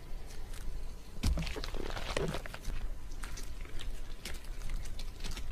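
Creature sound effect for the Arachno-Claw, a giant spider-like monster: irregular dry clicks and crunching chitters, with a louder low knock and rasping cluster about a second and a half in.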